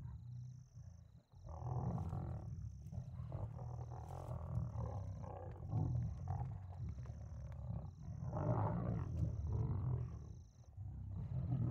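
Lions growling low and drawn-out while biting an impala trapped in mud, the growls broken by short pauses. A faint high chirp repeats about once a second.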